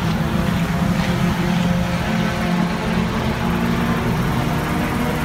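A vehicle engine running steadily, with a constant low pitch.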